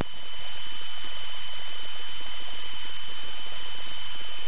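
Steady cockpit noise of a light training airplane in flight, engine and airflow heard through the headset intercom as an even hiss with a faint high whine.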